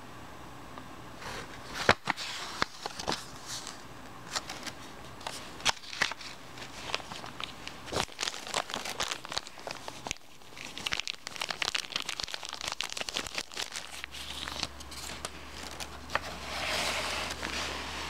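Cotton-gloved hands handling paper and plastic packaging: crinkling and rustling with many sharp little clicks, and a longer rustle near the end.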